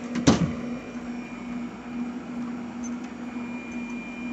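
A door pushed shut against its frame with one sharp knock, while the fit of the new deadbolt strike plate is checked. A steady low hum runs underneath.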